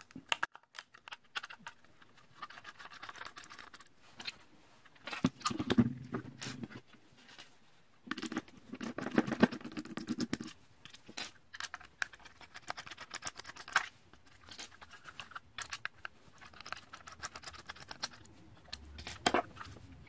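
A Phillips screwdriver backs small screws out of the plastic housing of a 2008 Honda Civic master power-window switch, with scattered clicks, scrapes and rattles as the switch unit is turned over and handled on a table.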